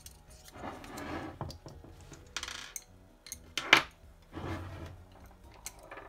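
Small screwdrivers scraping and clicking against a steel circlip on the splined output shaft of a Bosch mid-drive e-bike motor as the clip is pried off without circlip pliers. There is a sharp metallic click about three and a half seconds in.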